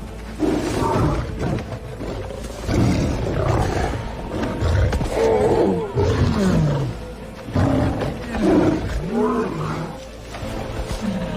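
A lion roaring and snarling in a run of loud, growling bursts with short pauses between them, as film sound effects over a low rumbling score.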